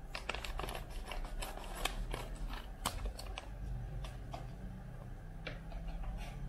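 Scissors cutting through a ready-to-eat food pouch, with crisp crackles and crinkles of the stiff packaging, dense for the first few seconds and then sparser clicks.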